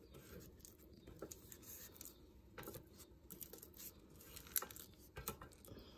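Faint scraping and tapping of a Thermomix plastic spatula against the stainless-steel mixing bowl, pushing chopped prunes down from the sides. A few sharper knocks come in the second half.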